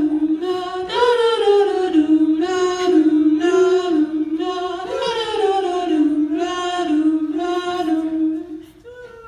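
A cappella vocal group singing layered harmonies, held chords shifting about once a second, dropping away shortly before the end.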